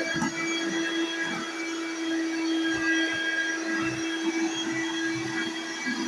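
Corded stick vacuum cleaner running with a steady motor whine as its head is pushed over a hardwood floor.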